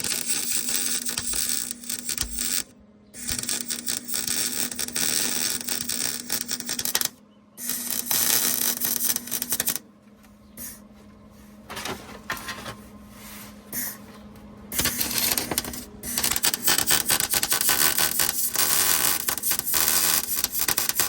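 Wire-feed (MIG) welder crackling as it lays beads on the steel muffler hangers, stopping and starting in runs of a few seconds, with a quieter patchy stretch in the middle; a steady low hum runs beneath.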